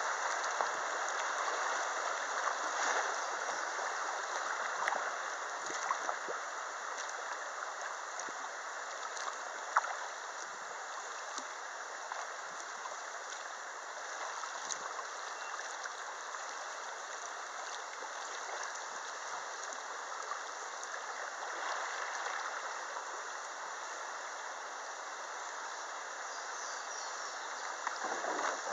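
Shallow river water rushing over a rocky riffle, a steady hiss, with splashes from a kayak paddle and one sharp knock about a third of the way through.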